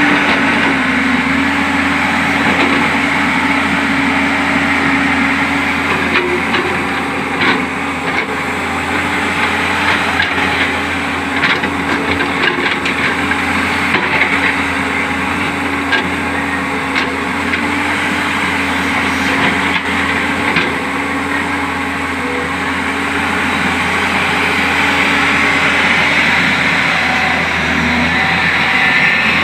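A JCB backhoe loader's diesel engine running steadily under working load, with scattered clanks and rattles of soil and stones around the bucket through the middle of the stretch.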